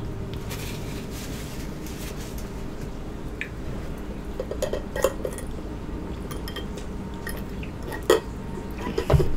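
Close-miked eating sounds: chewing with soft mouth clicks and light clinks. Near the end there is a sip through a metal straw and two sharper knocks.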